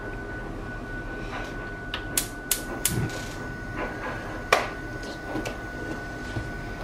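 A few sharp clicks of a gas hob's spark igniter as a burner under a saucepan is lit, followed a couple of seconds later by a single louder knock.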